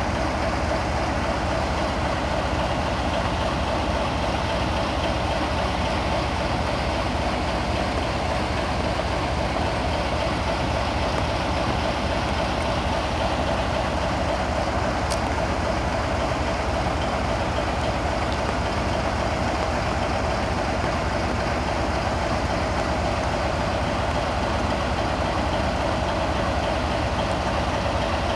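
Dongfeng 4C (DF4C) diesel-electric locomotive standing and idling, its 16-cylinder diesel engine running in a steady, even drone that does not change in pitch or level.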